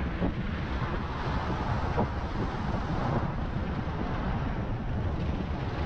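Steady wind and road noise from riding a Begode MSX electric unicycle, with the wind rushing over the microphone.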